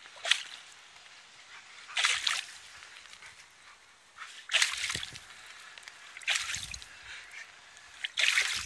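Spray of water splashing in five short hissing bursts, about two seconds apart.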